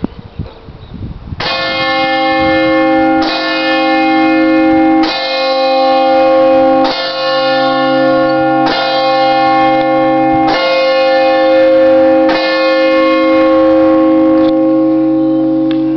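A church bell tolling, struck eight times at an even pace of about one stroke every two seconds, each stroke ringing on into the next.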